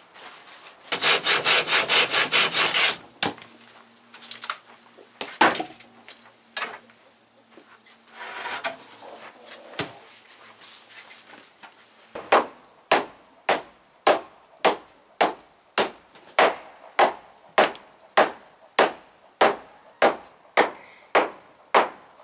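Wood being worked during pallet building: a short burst of rapid sawing strokes, a few scattered knocks, then a long run of about eighteen evenly spaced sharp strikes, roughly two a second.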